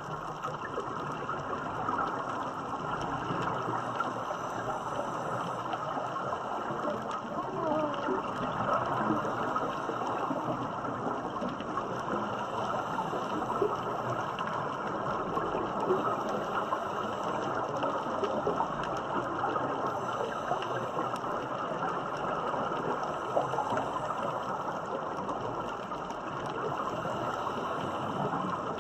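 Underwater ambience: a steady, dense crackling hiss of water noise, with the bubbling of scuba divers' exhaled air.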